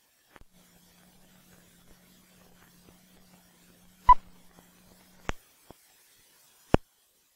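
Old film soundtrack noise: a faint steady hum with a few sharp clicks and pops from the print, the loudest about four seconds in and another near the end. The hum cuts off just after five seconds.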